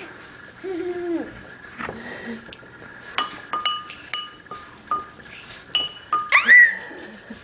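A spoon tapping on a bowl, about eight light clinks in the second half, each ringing briefly with a clear pitch.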